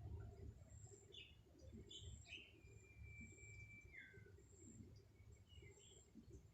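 Faint bird calls: a few short chirps and one drawn-out whistled note, held steady for about a second and a half before it drops in pitch, over a low background rumble.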